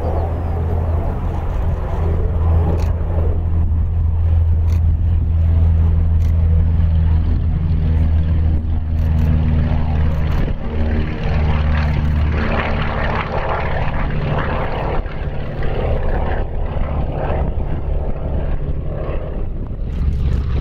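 Lisunov Li-2's two nine-cylinder radial engines at full takeoff power, a steady deep propeller drone as the airliner rolls, lifts off and climbs away.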